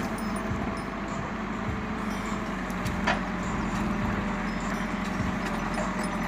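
Diesel engine of a CAT backhoe loader running steadily under load as the backhoe bucket digs into soil, with a single short knock about three seconds in.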